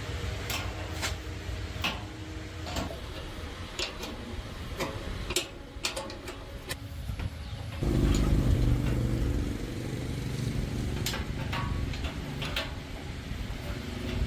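A motor-driven machine running with a steady hum and scattered sharp clicks; about eight seconds in it becomes louder and deeper.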